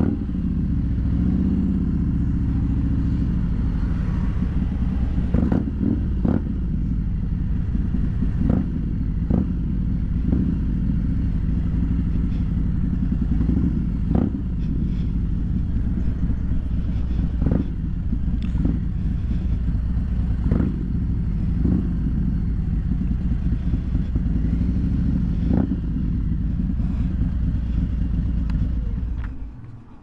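Harley-Davidson Milwaukee-Eight 114 V-twin engine of a 2021 Road King Special running steadily under way at low speed, heard from the rider's position, with occasional sharp clicks. The sound drops away sharply just before the end.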